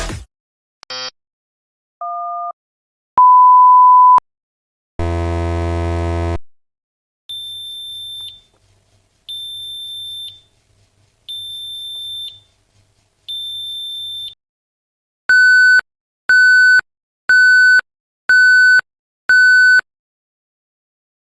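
A sequence of different electronic beep sound effects, one after another with silence between. A short high beep, a two-tone beep, then a loud steady pure tone about a second long like a censor bleep. Then a harsh buzzer tone, four high-pitched beeps about two seconds apart, and five shorter beeps in quick succession about a second apart.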